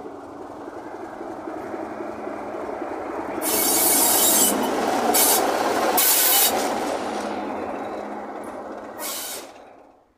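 BR Class 27 diesel locomotive D5394 with its Sulzer six-cylinder engine running past at low speed: a steady engine drone that grows louder as it draws level, with several short bursts of high hiss along the way. The sound breaks off abruptly near the end.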